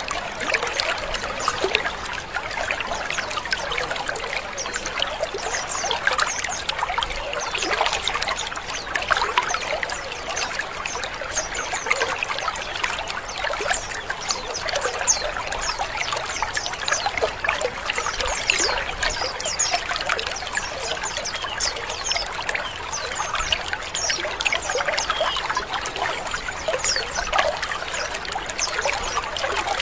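A colony of white-eyes (pleci) calling together: an unbroken, dense chatter of many short, overlapping, falling chirps mixed with rough 'ngrik' calls.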